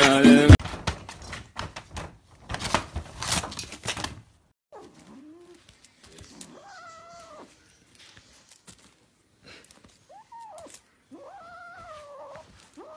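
Music stops half a second in, followed by a few seconds of scattered knocks and rustling. From about five seconds in, a small black kitten mews four or five times, in high cries that rise and then fall.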